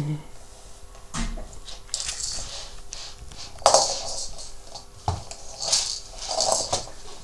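Irregular scuffing and rustling of a baby crawling on her belly across a wooden floor, with a few sharp knocks; the loudest knock comes about three and a half seconds in.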